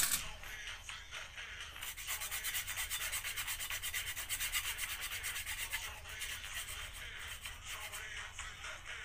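Hacksaw cutting through a plastic toothbrush handle: quick, even back-and-forth scraping strokes that start about two seconds in and grow lighter in the second half.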